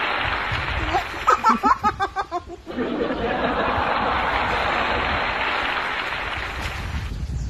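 A short burst of laughter, rapid pulsing ha-ha sounds, about a second in. Around it runs a steady rush of wind and waves that fades near the end.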